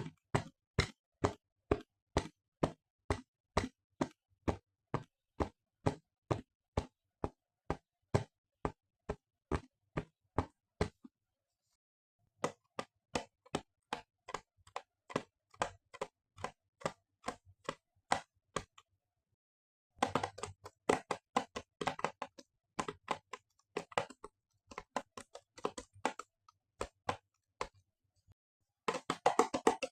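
Runs of sharp clicks or taps on a small hard object: a steady run at about three a second, a second steady run after a short pause, then faster, more irregular clattering, and a very rapid run near the end.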